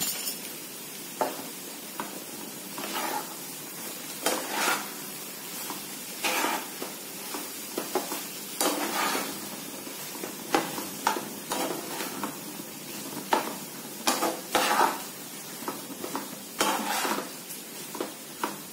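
Metal spatula stirring and scraping mashed-potato and vegetable stuffing around a frying pan over a gas flame, in repeated strokes roughly every second or two, over a steady sizzle.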